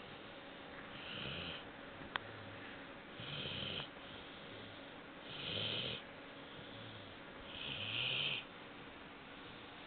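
Four-month-old Labrador Retriever puppy snoring as it naps, four snoring breaths about two seconds apart, with one sharp click a little over two seconds in.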